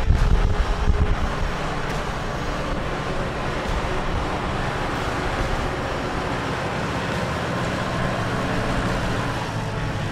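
McCormick B95 Max tractor's diesel engine running steadily under load as it pulls a harrow through dry soil. Wind buffets the microphone during the first second or so.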